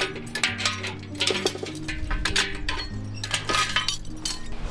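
Sharp metallic clinks and knocks of form-tie hardware being struck and worked loose as wooden concrete formwork is stripped, over background music.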